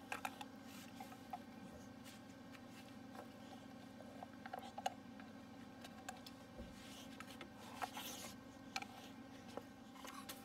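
Boxer dog gnawing a dried chew treat: soft, irregular crackles and clicks of teeth working the chew, over a steady low hum in the room.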